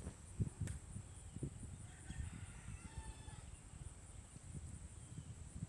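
Faint goose calls in the background, a short run of honks between about two and three seconds in.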